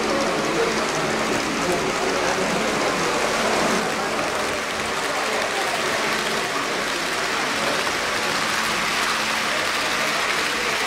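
H0-scale model freight train running on the layout's track, its small electric motors humming steadily and its wheels clicking over the rails, against the steady chatter of an exhibition-hall crowd.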